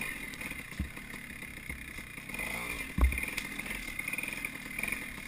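Dirt bike engine running steadily as the bike is ridden along a trail. Two dull thumps can be heard, one just under a second in and a louder one about three seconds in.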